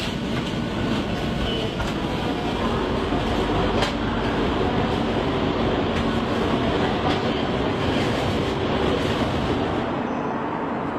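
Train running along the station track: a steady rumble of wheels on rail, with a sharp click about four seconds in.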